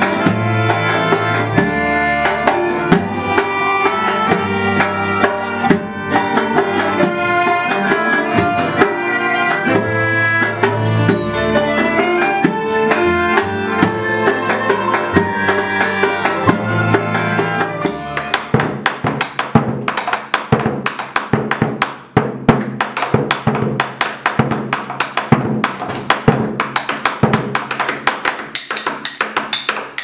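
Acoustic folk ensemble playing an instrumental passage on plucked and bowed strings. About 18 seconds in, the strings drop out and a fast, continuous run of drum strokes takes over: a large hide-headed drum beaten with two sticks.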